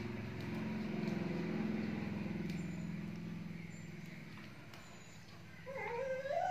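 Dog growling low, a rumble that fades out after about four seconds; near the end a short, higher, wavering whine.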